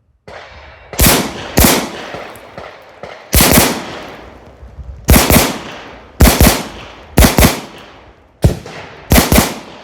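Handgun fired in doubles: about six quick pairs of shots, each pair a fraction of a second apart, with a second or so between pairs. The first pair is more widely spaced than the rest.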